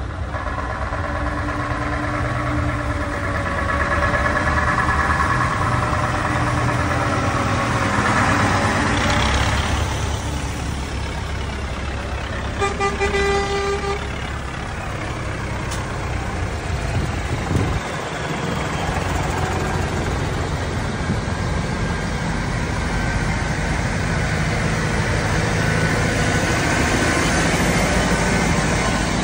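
A convoy of farm tractors and a lorry driving slowly past, their diesel engines running as a steady low rumble. A vehicle horn sounds once, for about a second and a half, near the middle.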